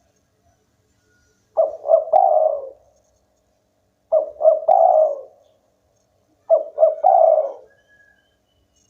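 Spotted dove (tekukur) cooing: three phrases about two and a half seconds apart, each two short notes followed by a longer rolling note.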